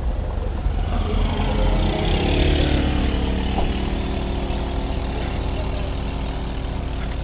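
A recorded vehicle engine from a sound-effects demonstration record, played back over a car stereo with heavy bass. The engine runs, rises in pitch about two seconds in, then holds a steady note.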